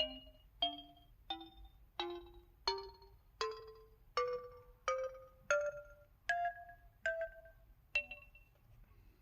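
SKY Vega Racer phone's 'Synthesizer' keypad dial tones: twelve short synthesized notes like mallet strikes, about two-thirds of a second apart, each dying away quickly. The notes climb in pitch step by step over the first ten, and the last two come lower.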